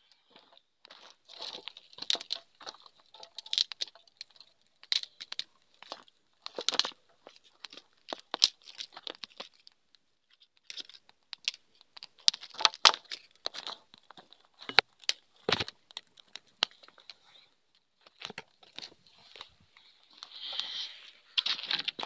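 Dry twig kindling crackling and snapping as it catches fire, in irregular sharp pops, with a softer rustle near the end.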